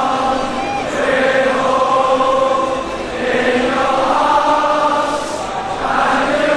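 Background music of a choir singing long, held notes in slow swelling phrases, with no beat.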